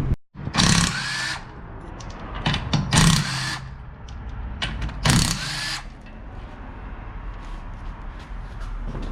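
A power tool, such as a drill or air tool, is run in three short bursts of about a second each, with light clatter between them.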